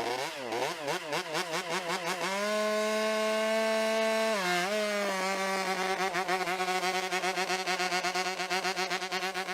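Buzzy electronic robot-dog sound: a wavering tone for the first two seconds, then a held steady note that dips briefly about four and a half seconds in, then the same tone pulsing rapidly.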